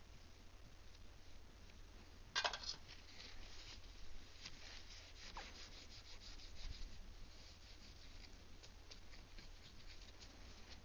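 Faint rubbing and light ticks of fingers handling an iPod, with one sharper click about two and a half seconds in.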